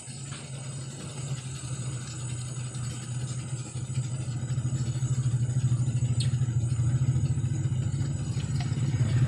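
An engine running with a steady low drone that grows louder about four to five seconds in, with a few faint clicks over it.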